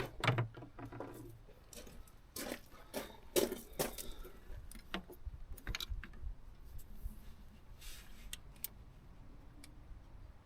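Small metal tools and parts clinking and knocking irregularly while being handled, busiest in the first few seconds and then sparser.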